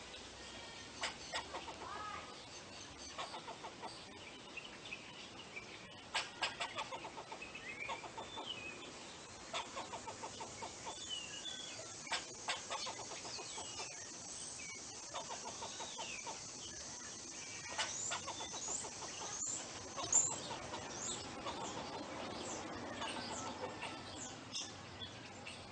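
Squirrel chattering and calling: repeated runs of rapid clicking chucks, with short high chirps, many of them in the second half.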